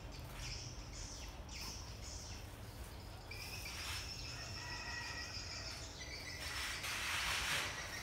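Birds chirping and insects calling in a garden. A steady high insect-like drone starts about three seconds in. Near the end a louder rustling noise is heard.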